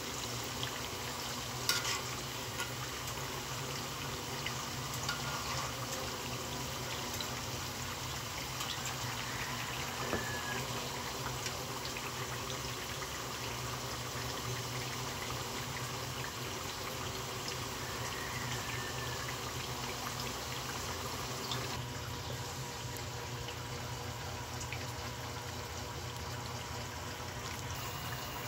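Sweet potato chunks deep-frying in oil in a metal wok: a steady sizzle with scattered small pops. A sharper click comes about two seconds in.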